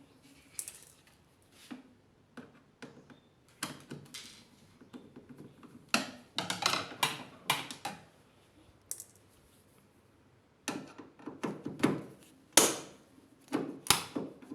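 Irregular clicks, taps and short scrapes of hands handling a washing machine's plastic panel and parts, with a short quiet pause about two thirds of the way through.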